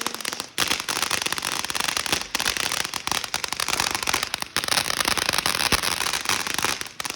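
Fireworks crackling and popping in a dense, rapid stream of small bangs, with brief lulls about half a second in and near the end.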